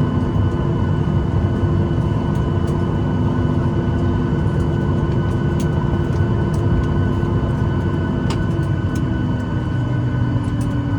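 Jet airliner cabin noise after landing: the engines' steady hum and whine heard from inside the cabin, with one tone starting to drop in pitch near the end.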